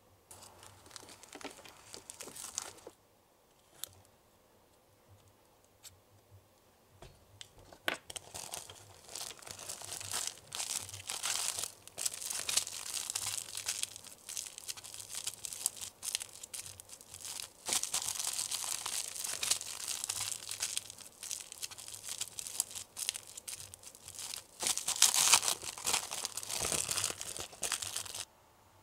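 Crinkling and tearing of a plastic or foil packet handled close to the microphone, in irregular spells with many small crackles. There is a brief lull a few seconds in, then steadier crinkling that is loudest near the end.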